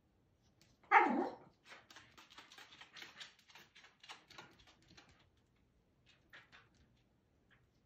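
A corgi gives one loud bark about a second in, then its claws click and scrabble on the hardwood floor for a few seconds, with a faint short yip or whine near the end.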